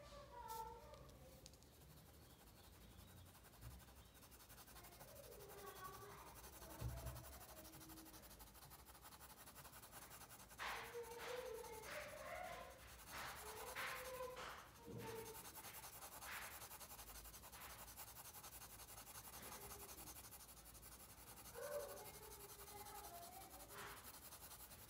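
Faint scratching of a colouring pencil shading on paper, in short back-and-forth strokes.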